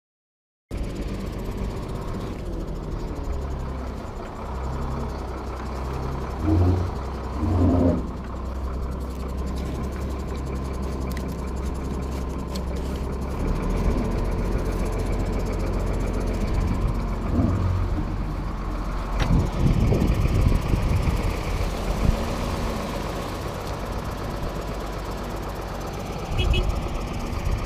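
Diesel engine of a large wheeled tractor running with a steady low drone that grows heavier a little before halfway through, as the tractor takes up the tow strap.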